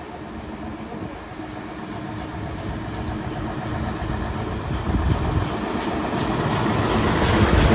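A heavy truck and a coach bus approaching along the road, their diesel engines running steadily and growing louder as they draw near.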